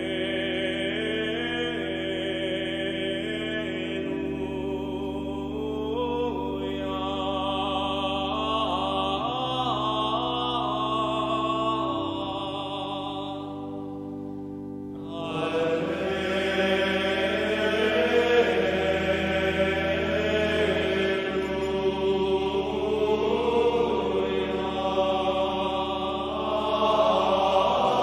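Recorded meditative chant: voices singing a slow melody over sustained low chords that change every few seconds. It dips and thins about halfway through, then starts again louder.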